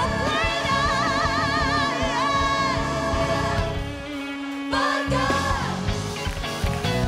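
Live gospel choir singing with a band, the voices holding wavering notes with heavy vibrato. About four seconds in, the drums and bass drop out for about a second, leaving a single held note, and then the full band comes back in.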